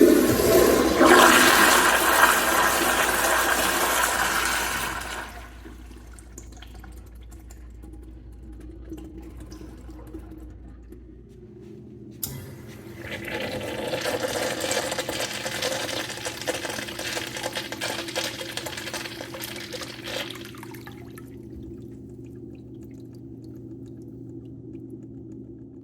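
Two toilet flushes in a row. The first is a loud rush of water that dies away after about five seconds. About twelve seconds in, a sharp click of the flush valve sets off a second, quieter rush that lasts about eight seconds, with a steady low hum underneath.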